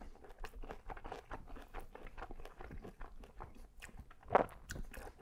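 Close-miked chewing and biting of a falafel waffle topped with spicy lamb and feta: a run of small crunches and mouth clicks, with one louder crunch about four seconds in.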